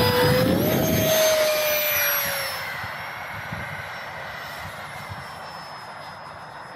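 E-flite Habu's electric ducted fan whining as the jet spools up and takes off, the pitch rising in the first second. The whine then fades steadily as it climbs away.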